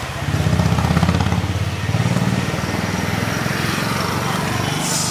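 Domestic cat purring close up: a low, rapid pulsing that swells and eases.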